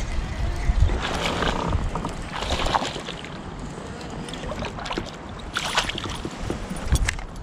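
Wind rumbling on the microphone and water around a kayak, with a few short splashes as a hooked bass is brought in to the boat.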